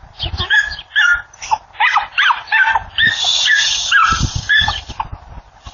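Small dogs barking and yipping in a quick, irregular series of short calls, with a harsher stretch about three seconds in.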